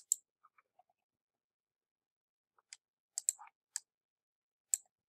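Computer mouse clicking: a click right at the start, then a little cluster of clicks about three seconds in and a single click near the end, with stillness in between.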